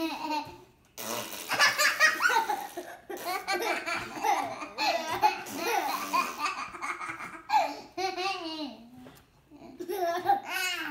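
A woman and young children laughing hard in repeated bursts, set off by a baby's spluttering.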